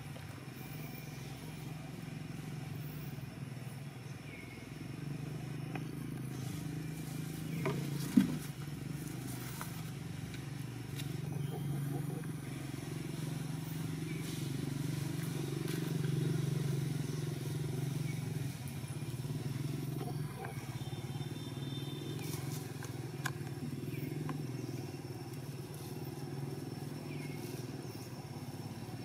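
Low, steady hum of motor vehicle engines passing some way off. It swells to its loudest about halfway through, then eases, with a few light clicks over it.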